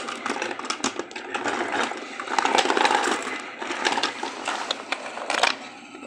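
Toy trains and wooden blocks clattering and scraping on a wooden table as they are pushed and handled by hand, with many small irregular knocks and clicks.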